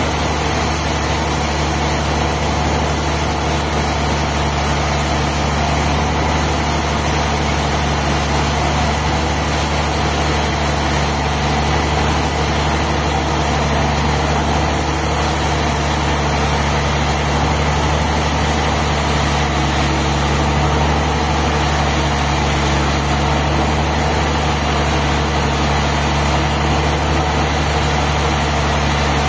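An engine running steadily at one constant speed, a low even drone with no revving or changes.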